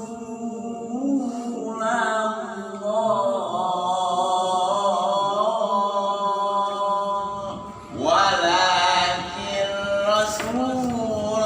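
A voice reciting the Qur'an in melodic tilawah style, drawing out long, wavering notes in two phrases. The second phrase, starting about eight seconds in, is louder.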